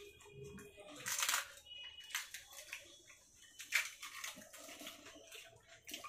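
Scattered, short eating noises of fuchka (pani puri): crisp shells crunching and the spiced tamarind water slurping.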